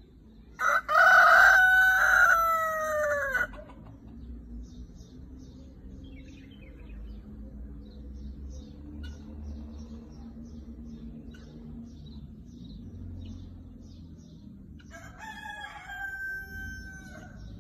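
Red rooster crowing: one loud crow about a second in, about three seconds long and ending on a falling note, then a second, quieter crow near the end.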